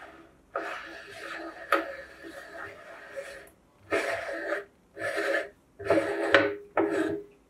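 Metal locking ring and perforated plate of a hand-cranked cast-iron meat grinder being twisted and worked loose, scraping in a series of short grating bursts with a couple of sharp metal clicks.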